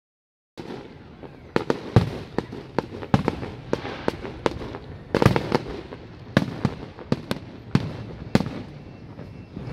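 Aerial fireworks shells bursting: an irregular string of sharp bangs, a couple a second, over a steady crackle and rumble. The sound cuts in suddenly about half a second in.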